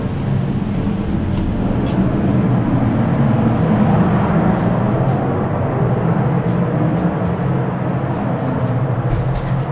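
Steady, loud mechanical drone of shipboard machinery, with a low hum held under it and a few faint clicks.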